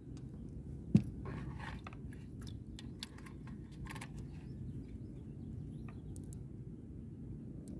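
A sharp knock about a second in, then scattered light clicks and scratchy rustles from a rod and spinning reel being handled in a small boat, over a steady low rumble.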